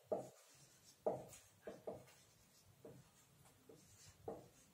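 Dry-erase marker writing on a whiteboard: a faint series of short, separate strokes as letters are drawn.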